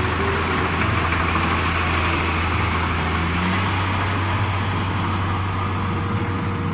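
Kubota DC70 rice combine harvester's diesel engine running steadily under load, with a continuous rush of noise from the cutting and threshing machinery.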